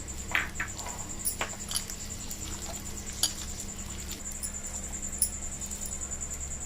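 A few light knocks and scrapes of a mixing bowl being worked as ingredients go into a potato dough. Under them runs a steady, faintly pulsing high-pitched whine with a low hum.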